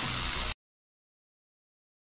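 Compressed air hissing from a blow-gun nozzle onto a fast-spinning fidget spinner, with background music. Both cut off abruptly about half a second in, leaving dead silence.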